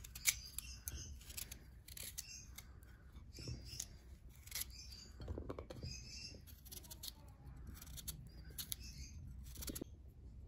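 Kitchen knife slicing raw carrot on a wooden cutting board: a run of crisp, irregular cuts and taps of the blade on the board.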